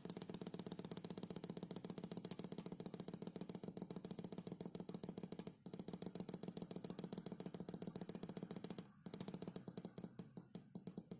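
Faint, rapid and evenly spaced clicking over a low steady hum, breaking off briefly twice.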